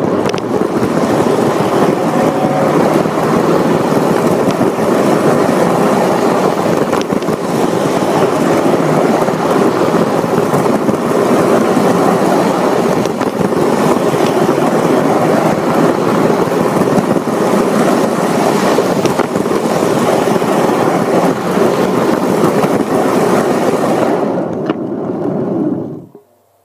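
Lionel Polar Express toy train running on its track, heard from up close as it carries the camera: a loud, steady rumble of wheels and motor that dies away suddenly near the end.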